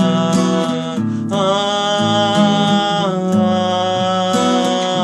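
Acoustic guitar strumming a song accompaniment, with the last sung note of the line held at the start and a sustained melody carrying on above the strummed chords.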